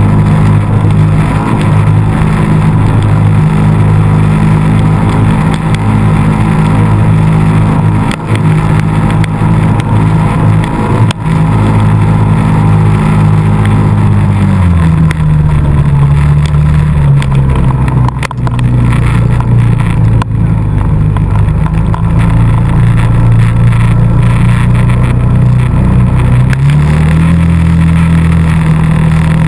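ATV engine running steadily. Its pitch drops about halfway through as the throttle eases, holds lower, then climbs again near the end.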